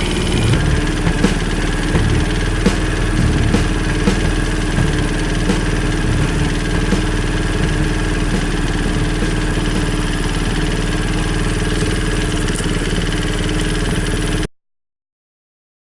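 Honda Super Cub's small single-cylinder four-stroke engine running steadily, with a few light clicks over it. The sound breaks off suddenly near the end.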